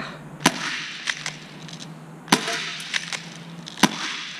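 FN FNS-9 CO2 airsoft pistol firing BBs: three sharp cracks about a second and a half apart, with fainter clicks between them.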